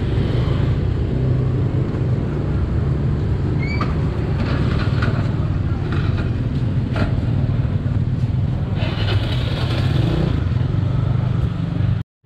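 A motor vehicle engine running steadily with road noise, its low hum holding throughout; the sound cuts out briefly near the end.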